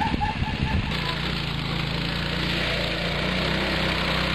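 A dog yips in quick repeated calls for about the first second. Then a go-kart's small engine runs steadily for the rest of the time.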